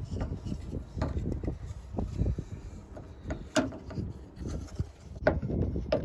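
Plastic exterior door handle and its metal linkage rods clicking, knocking and rubbing against the door sheet metal as the handle is worked into its opening, with a sharp knock about three and a half seconds in and another a little after five seconds, over a low rumble.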